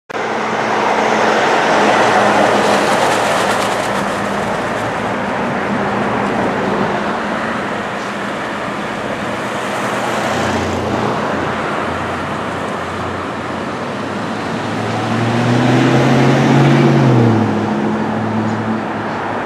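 Busy street traffic: cars and trucks running and passing. Near the end a low droning engine note swells for a couple of seconds, then drops away in pitch.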